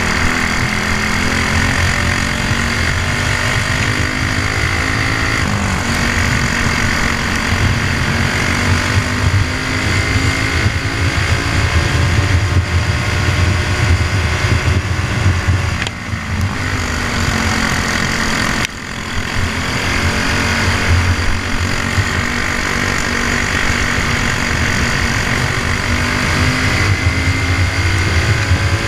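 Briggs & Stratton Animal single-cylinder four-stroke kart engine running flat out, heard from on board the kart, its revs climbing slowly along the straights. Twice in the second half the revs drop suddenly as the throttle is lifted, then build again.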